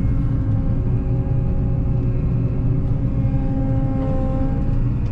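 Motor vehicle engine running at a steady speed, with a continuous low rumble.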